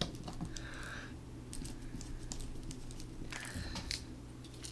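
Small clicks and brief scraping of a screwdriver driving in the screws that hold the LCD panel of a Dell Inspiron 7559 laptop, with a sharp click at the start, over a steady low hum.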